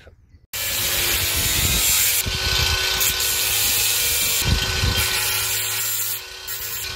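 A handheld power tool with a round sanding pad running and grinding against the underside of a boat's cabin roof: a steady motor hum under a harsh abrasive rasp. It starts abruptly about half a second in and eases off slightly near the end.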